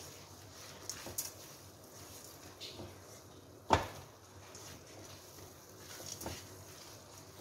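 Silicone spatula stirring a thick, moist grated bottle gourd mixture in a nonstick kadhai: soft scrapes and scattered light clicks against the pan, with one sharp knock a little under four seconds in.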